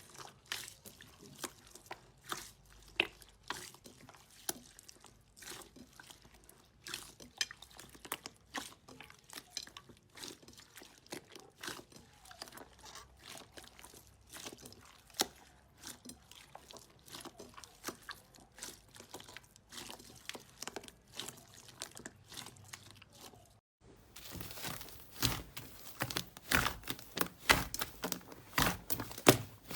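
Slime being squeezed and pressed by hand, making irregular small clicks and pops. About 24 seconds in the sound breaks off for a moment, then a denser, louder run of crackling clicks follows.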